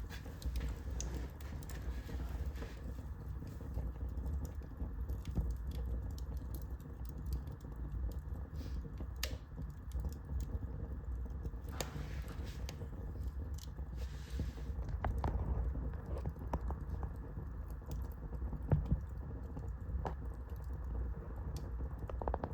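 Fire crackling in a fireplace: irregular snaps and pops over a low steady rush.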